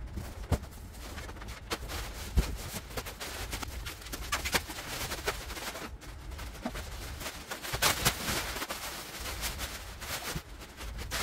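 Clear plastic packaging crinkling and rustling as a bean bag bed is pulled out of its box and unwrapped, with scattered crackles and a few dull thumps; the crinkling is loudest about eight seconds in.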